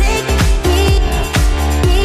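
Background electronic dance music with a steady kick-drum beat, about three beats a second, under a sliding synth melody.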